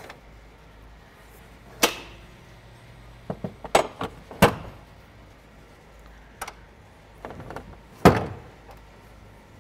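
Metal clicks and clunks of a camper's corner jack being unpinned from its bracket and swung round to a horizontal mount: a series of sharp, short knocks, the loudest about two seconds in, around four and a half seconds in, and about eight seconds in.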